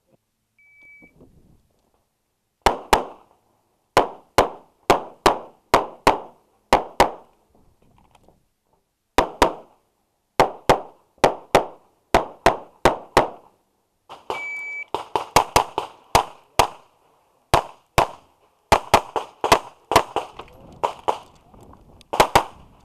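Semi-automatic pistol fired rapidly, mostly in quick pairs of shots, about thirty shots in all after a short quiet start, with one longer pause partway through. A short electronic beep sounds about half a second in and again about halfway through.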